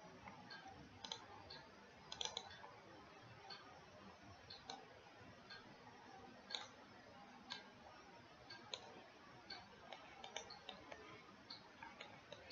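Faint, irregular clicks of a computer mouse over quiet room hiss, with a short run of louder clicks about two seconds in.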